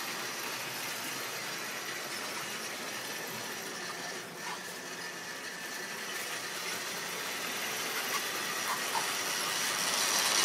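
Tri-ang model train running on the track, a steady electric-motor hum and wheel rumble with a faint high whine, growing louder as it comes past close by near the end.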